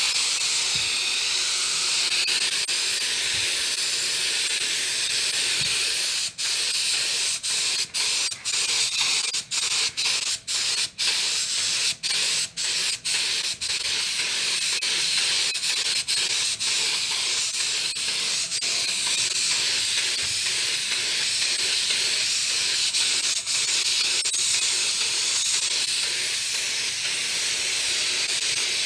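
Compressed air hissing steadily out of an air gun as a homemade compressor's tank is drained. Between about six and fourteen seconds in, the flow cuts off briefly a dozen or so times as the trigger is let go and pressed again, then runs on steadily.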